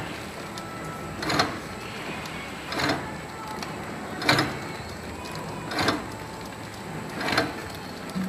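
Automatic extruder packing machine for modelling clay running steadily, with a sharp clack about every one and a half seconds, one per packing cycle.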